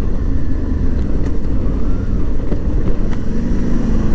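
Motorcycle engine running under heavy wind rumble on the microphone as the bike slows and shifts down from third to second gear, its note rising in the second half.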